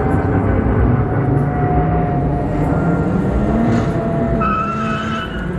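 Street drag-racing cars accelerating hard and passing close by. Loud, steady engine noise, with a high whine joining in about four and a half seconds in.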